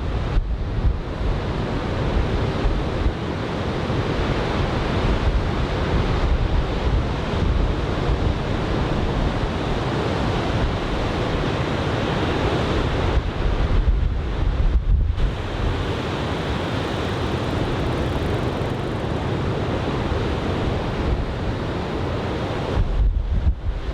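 Large typhoon swell breaking on the beach, under steady wind rumbling and buffeting the microphone. The wind noise eases briefly a little past the middle and again near the end.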